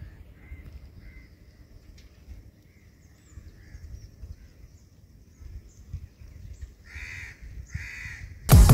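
Crows cawing: faint scattered calls at first, then two louder caws near the end, over a low steady rumble. Loud music cuts in abruptly just before the end.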